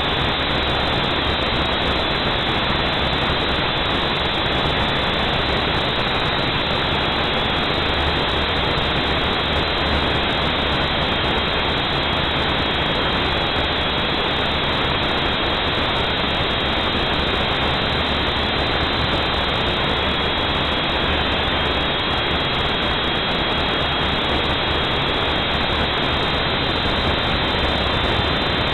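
Small camera quadcopter (a UDI Discovery HD) in flight, its motors and propellers whirring steadily: a constant rushing hiss with a thin high whine that wavers slightly in pitch.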